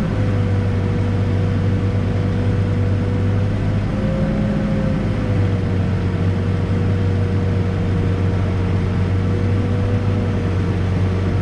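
Backhoe diesel engine running steadily under load while digging, with a steady high whine over the low engine hum that lifts slightly about four seconds in.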